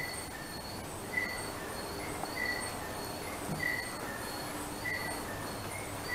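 A short high chirp repeating evenly, about once every 1.2 seconds, over a steady background hiss.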